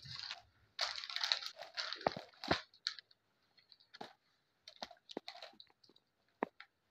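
Plastic snack packets and wrappers crinkling and rustling as they are handled, then scattered small clicks and taps as gift items are picked up and set down.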